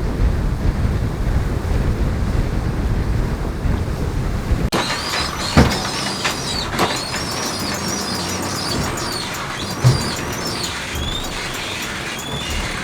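Onboard noise of a racing sailboat under way: a heavy wind-and-water rumble, which changes suddenly about five seconds in to high, wavering squeaks and creaks from the boat's gear, with a few sharp knocks.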